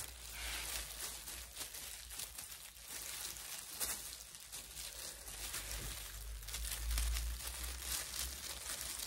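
Disposable plastic gloves crinkling and rustling as gloved hands work relaxer cream through hair and comb it, in an irregular run of rubbing and crackling, with a low rumble swelling about six to seven seconds in.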